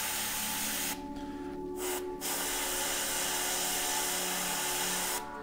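Airbrush hissing as it sprays thinned acrylic paint, the trigger let off for a moment about a second in, briefly again at about two seconds, and near the end, with the steady hum of the air compressor running underneath.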